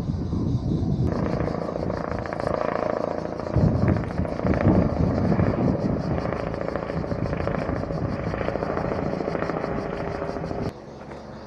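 Firefighting helicopter's rotor chopping with a rapid, even beat. It comes in about a second in over a low rumble and cuts off suddenly near the end.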